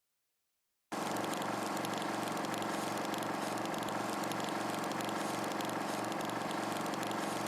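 A small electric motor starts abruptly about a second in and runs steadily, a constant hum with a slow low pulsing of about three beats a second.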